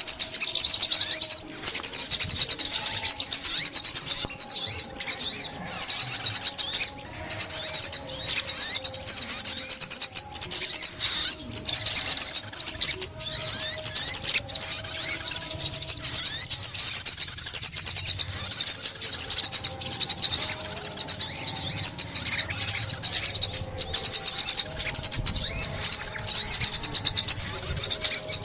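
Sunbird singing without pause: a rapid, high-pitched twittering song of quick trills and chirps.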